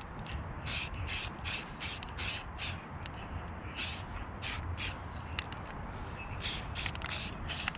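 Aerosol spray can of primer being sprayed in a quick run of short hissing bursts, about a dozen and a half in all, with a couple of brief pauses between runs.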